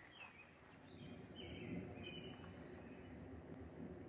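Faint outdoor ambience: a few short bird chirps and, from about a second in, a high, thin, steady trill lasting about three seconds, over a low rumble.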